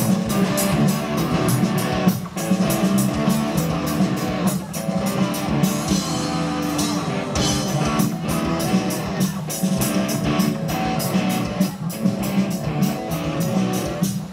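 Rock music: electric guitars over a steady drum-kit beat.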